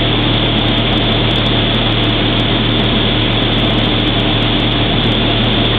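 A vehicle engine idling steadily, a constant low hum under an even hiss, with no change or impact.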